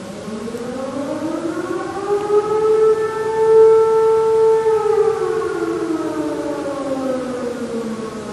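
Outdoor civil defence siren wailing: its pitch climbs over about three seconds, holds, then slowly falls away, growing loud toward the middle and fading after.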